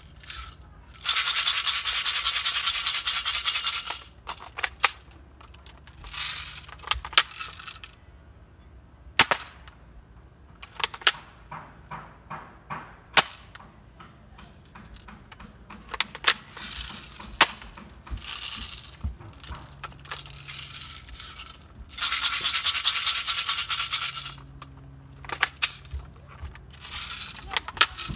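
Airsoft gun firing: two long full-auto bursts of about three seconds each, with scattered single sharp shots and clicks in between.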